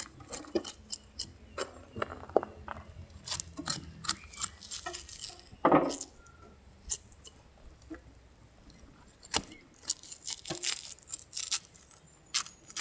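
Fillet knife cutting along the backbone of a large fish, giving irregular small clicks and scrapes as the blade meets the bones, with one louder one about six seconds in.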